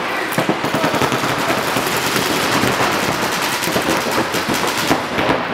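Paintball markers firing in rapid streams, a dense, unbroken rattle of shots.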